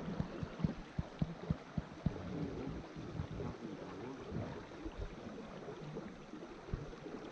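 River water lapping and gurgling against wooden canoe hulls, with irregular low knocks of water and wood against the boat, most frequent in the first couple of seconds.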